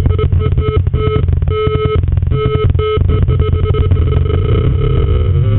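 Drunken Ninja circuit-bent analog effects unit putting out a rapid, crackling square-wave distortion buzz, with its gated VCO tone cutting in and out in short bursts as the LFO rate knob is turned. Near the end the pitch glides upward.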